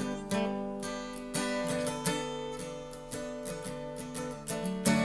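Acoustic guitar strumming chords as an instrumental break between sung verses, with a strum every half second to a second.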